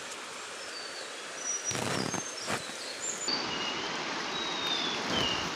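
Steady rush of a fast-flowing river, with a scatter of short, high bird chirps over it and a brief louder rustle about two seconds in.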